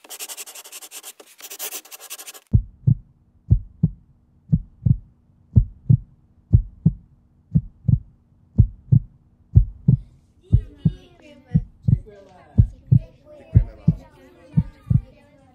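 Heartbeat sound effect: low double beats, lub-dub, about once a second, starting about two and a half seconds in after a short burst of hissing, crackling noise. From about ten seconds in, a higher sound with wavering pitch plays over the beats.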